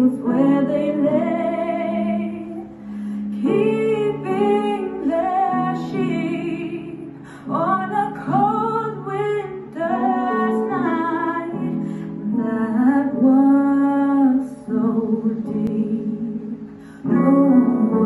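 A song: a female voice singing over instrumental accompaniment, in phrases with short breaks between them.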